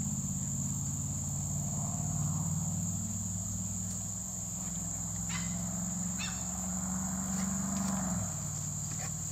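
Steady, high-pitched trilling of evening insects, over a low steady hum that changes about eight seconds in. A few faint clicks come through in the middle.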